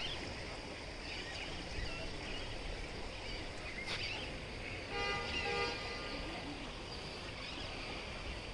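Steady outdoor background noise, with a short vehicle horn toot about five seconds in.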